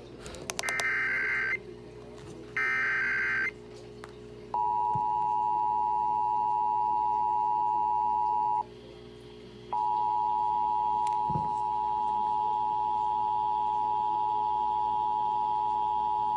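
Emergency Alert System test broadcast: two short bursts of SAME header data tones, then the two-tone EAS attention signal, a steady dual tone that breaks off for about a second and then resumes.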